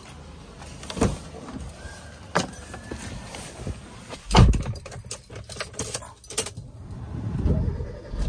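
Getting into a Maruti Suzuki car: latch clicks as the driver's door opens, then the door shut with a heavy thump about four seconds in, the loudest sound. Keys jangle and click in the ignition, and near the end the engine starts and settles into a steady low idle.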